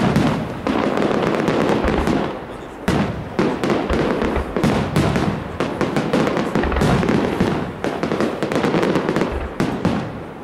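Aerial firework shells bursting in quick succession: a dense barrage of booms and crackling, with a short lull about two and a half seconds in.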